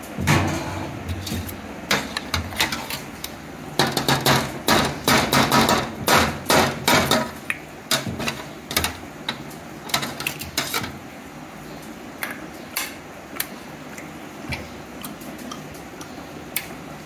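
A steel ladle knocking and scraping on a large steel serving tray as paye meat is broken up and scooped: a run of quick metallic clanks, densest a few seconds in, then thinning to occasional clinks after about ten seconds.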